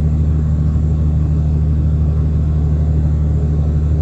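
Semi-truck's diesel engine and tyres at steady highway cruise, heard inside the cab: an even, unchanging low drone.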